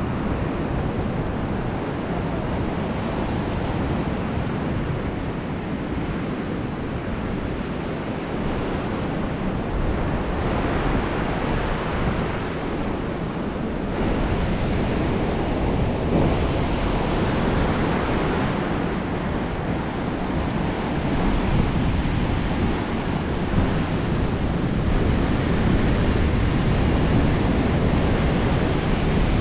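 Surf breaking and washing up a sandy beach in slow swells every few seconds, with gusty wind rumbling on the microphone.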